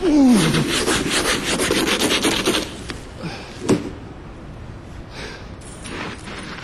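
Rapid, rhythmic scraping of snow and ice off a car, about five strokes a second for roughly two and a half seconds, opening with a short falling tone. A single sharp knock follows near the middle, then fainter scratching.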